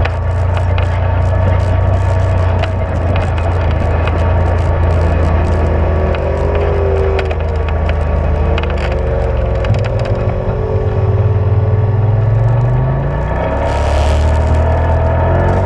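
A UTV (side-by-side) engine running under way on a dirt trail, with clicks and rattles from the rough ground. The engine note eases about nine seconds in, then climbs steadily for a few seconds as it picks up speed for a hill. A short burst of hiss comes near the end.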